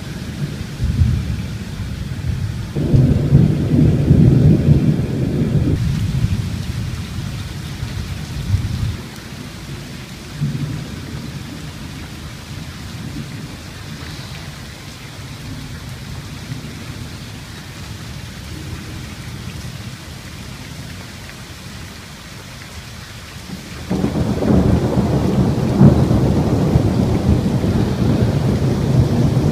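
Thunder rolling over steady rain. A long rumbling peal in the first few seconds dies away by about nine seconds in, leaving the rain hiss alone. A sudden loud rumble starts about twenty-four seconds in and carries on.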